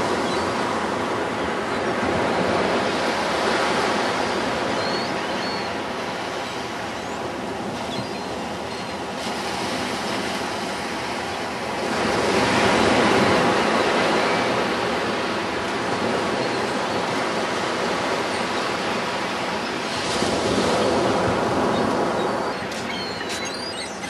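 Ocean surf breaking and washing up on the beach: a steady rush that swells louder with the bigger waves, once about midway and again near the end.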